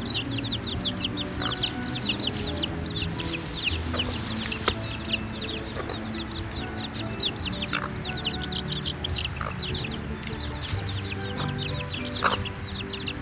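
A group of baby chicks peeping continuously, many short high chirps overlapping, over soft background music.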